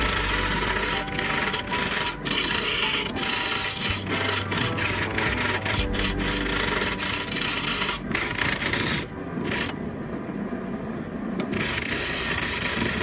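Hand-held lathe gouge cutting spinning coconut wood: a steady scraping rasp of the tool edge peeling shavings off the turning blank. Around nine seconds in the high hiss thins out for about two seconds, then the cut resumes.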